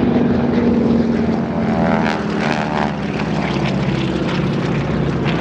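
Propeller-driven piston-engine warbird flying over, a loud steady engine drone.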